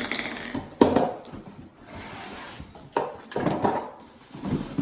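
Hard plastic vacuum parts handled and knocked together: a sharp click or knock about a second in and another about three seconds in, with rustling and rubbing between.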